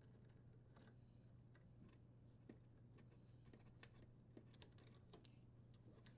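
Near silence, with faint scattered small clicks as wire nuts are untwisted and the wires are handled at a dishwasher's junction box.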